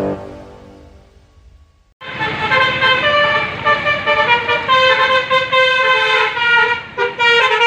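Music fading out, then about two seconds in a bus's telolet horn (a multi-tone musical horn) starts up loudly, playing a quick tune of changing notes with a brief break near the end.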